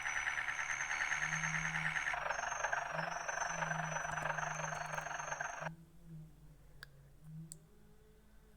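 A loud, fast-pulsing electronic buzz with a high whistle over it, changing tone about two seconds in and cutting off suddenly at about five and a half seconds, followed by a few faint clicks.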